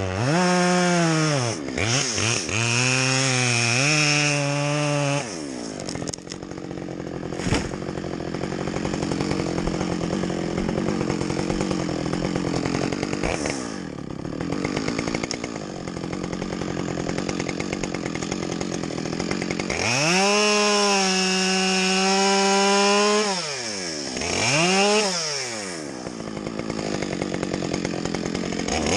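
Chainsaw revving and cutting through a tree trunk. It revs high and blips up and down, then drops lower and rougher under load through a long cut, with a sharp knock partway in, and revs freely again near the end.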